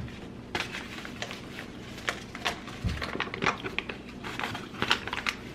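Fast-food sandwich packaging being handled and opened: irregular crinkling and crackling of paper, with a soft thump about three seconds in.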